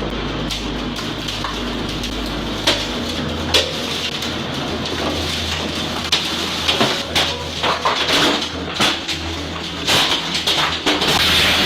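Tornado wind and rain noise with many sharp cracks and clattering of debris, which grow thicker from about six seconds in.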